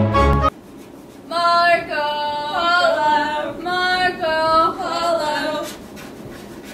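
Orchestral music cuts off just after the start. About a second later a single high voice sings a short unaccompanied phrase of several held notes, lasting about four seconds, followed by low background noise.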